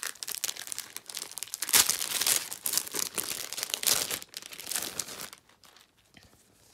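Clear plastic packaging of a sticker pack crinkling and rustling as it is opened and the sticker sheets are slid out. The crinkling dies down about five seconds in.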